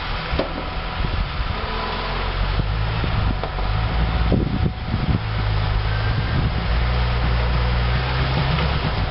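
Lifted Jeep Cherokee XJ's engine running steadily under load as it crawls over boulders, with a few sharp knocks from the rig on the rocks about four to five seconds in.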